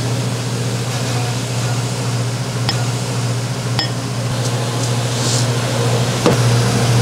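Steady low hum of kitchen machinery, like a ventilation fan or a refrigeration unit, with three light clicks, the last one about six seconds in.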